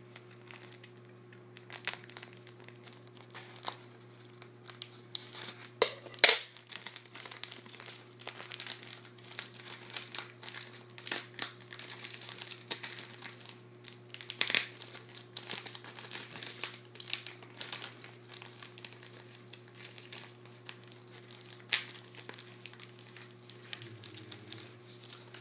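Plastic packaging crinkling and rustling as it is handled, with irregular crackles and clicks throughout and a few sharper snaps, the loudest about six seconds in.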